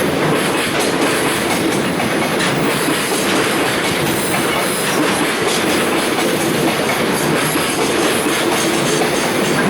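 Koki container wagons of a freight train rolling past on departure: a steady rumble of steel wheels on rail with clickety-clack over the rail joints.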